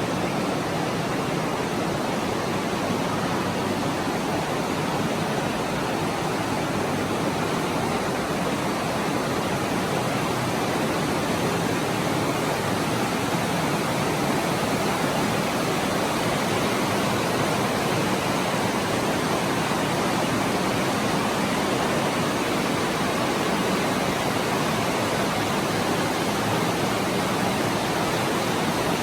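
Steady, even rushing of water flowing through a cave stream, unchanging throughout.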